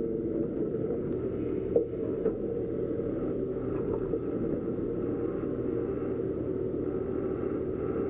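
Doosan DX140 excavator's diesel engine running steadily at a low rumble, heard from the cab, with two short knocks about two seconds in.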